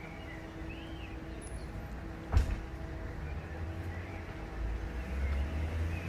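Outdoor ambience: a steady low rumble with a faint hum, a few faint high bird chirps, and one sharp knock about two and a half seconds in. The rumble swells near the end.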